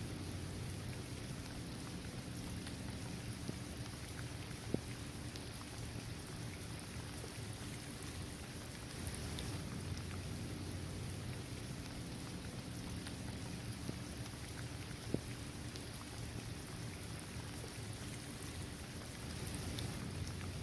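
Steady rain falling on a hard basketball court, trees and grass, with single louder drops ticking now and then, two sharp ones standing out about five and fifteen seconds in.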